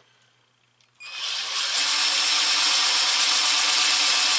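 Cordless drill starting about a second in and building over the next second to a steady running speed, its small 1/16-inch bit boring a pilot hole through a wooden rifle stock.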